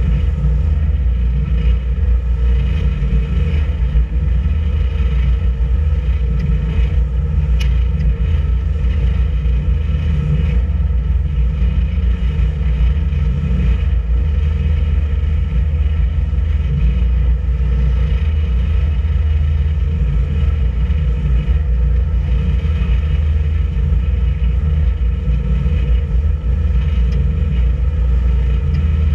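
A boat's engine running steadily under way: a constant low rumble with engine tones that hold the same pitch throughout, with no change in speed.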